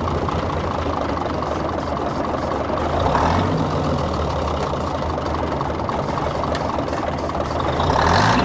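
Old Diamond REO dump truck's diesel engine running, kept going with ether sprayed into the air intake after it ran out of fuel. It revs up briefly about three seconds in and again near the end.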